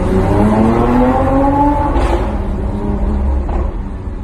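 Supercar engine heard from inside the cabin, accelerating with its note rising for about two seconds, then dropping at a gear change and running on at a lower pitch.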